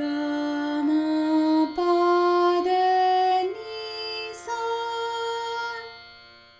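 A voice singing the Carnatic swaras as an ascending scale, one held note for each step, over a steady drone. The top note is held longest and then fades away.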